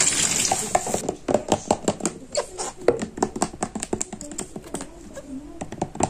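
Water streaming out of a squeezed, soaked sponge for about a second, then a run of quick, irregular clicks and taps as fingers handle a plastic dish soap bottle and its push-pull cap.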